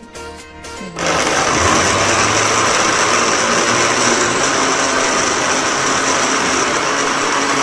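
Countertop blender motor switching on and running steadily at full speed, blending peach pieces, sugar and water into juice. It starts suddenly about a second in and is loud and even throughout.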